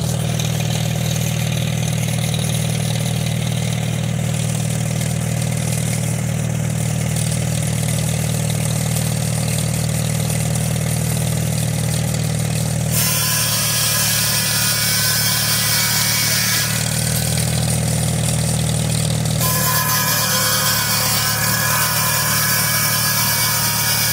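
An International Harvester tractor's engine runs steadily, driving a belt-driven buzz saw with a large, freshly sharpened circular blade. About 13 seconds in, the blade cuts through a log for a few seconds, and it cuts again from about 19 seconds on. The engine note dips under the load of each cut.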